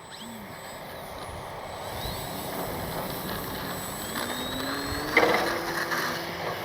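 Brushless electric motor and propeller of an FMS Ranger 1220mm RC plane in flight, its whine rising steadily in pitch over a few seconds as it speeds up, heard over wind noise on the microphone. A brief louder rush of noise about five seconds in.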